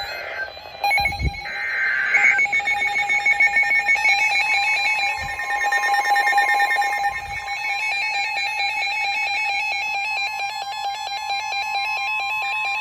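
NOAA weather radio receivers sounding their alert alarms: a warbling electronic alarm tone runs throughout. About four seconds in, the steady single-pitch 1050 Hz warning alarm tone joins it and holds until near the end. This marks a tornado warning about to be broadcast.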